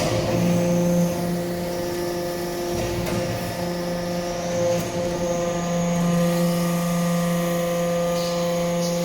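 Hydraulic metal-chip briquetting press running, its pump and motor giving a steady hum with a few level tones, and a short click right at the start.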